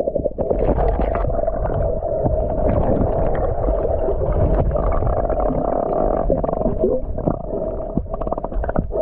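Muffled underwater sound of a swimmer in a stream pool: bubbling and the knocks of arm and leg strokes over a steady low hum.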